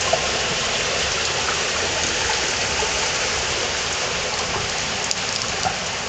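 Underground waterfall in a cave, water falling steadily into a rock crevice with a loud, even rush.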